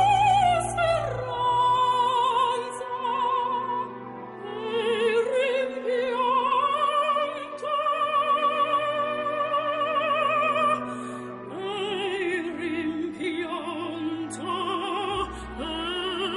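Operatic singing: a voice holding long notes with a wide vibrato over instrumental accompaniment.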